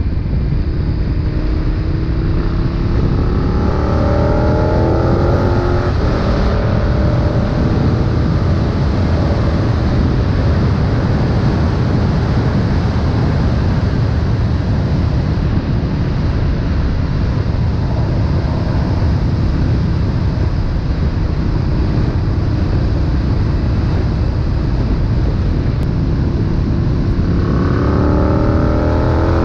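KTM 1290 Super Duke R's V-twin engine through an Austin Racing exhaust, ridden at speed: the engine note rises under acceleration about three seconds in and again near the end, with a steady low rumble in between.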